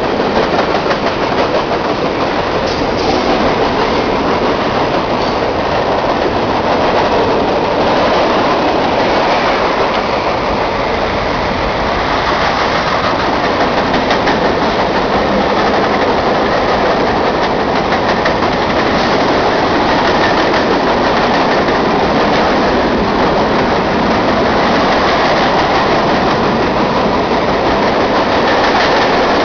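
Freight train cars rolling past: a steady, loud rumble and rattle of steel wheels on the rails, with a faint clickety-clack.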